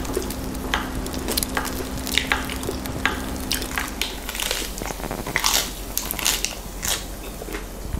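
Close-miked ASMR eating and food-prep sounds: a run of crisp bites, crunches and wet squishes one after another, over a faint steady hum that stops about halfway.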